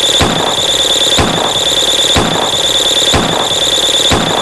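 Loud, chaotic pile-up of layered meme sound effects: a steady shrill high-pitched whine over a dense noisy clutter, with a booming hit about once a second.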